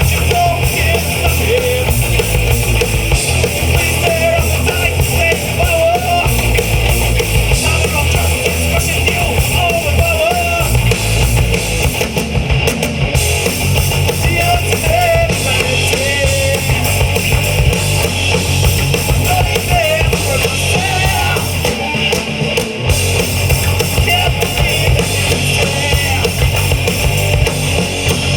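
A rock band playing loud, steady music with electric guitars, bass guitar and drum kit.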